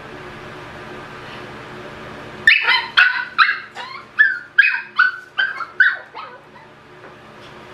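Pomeranian puppy yapping: a quick run of about a dozen short, high-pitched barks, each dropping slightly in pitch, starting a couple of seconds in and stopping about a second before the end.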